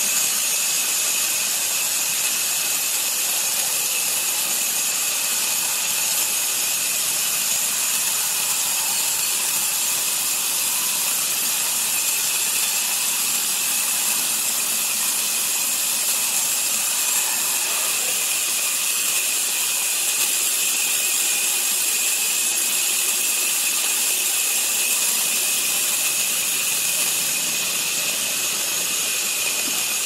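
Horizontal band sawmill running, its band blade sawing through a squared timber: a steady, high-pitched hiss with a thin whine in it, unchanging throughout.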